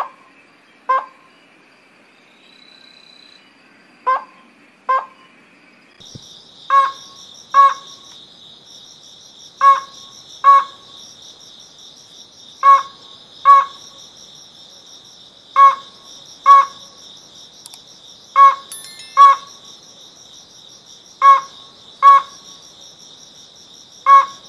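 Ruddy-breasted crake calling: loud, short, hard notes given in pairs, a pair about every three seconds. Under the calls runs a steady high insect drone that grows louder and fuller about six seconds in.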